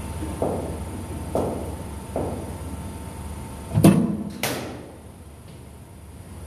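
A few soft thumps, then a cricket ball landing with a loud thud and, half a second later, a sharp crack that fits the bat striking the ball, in an indoor net.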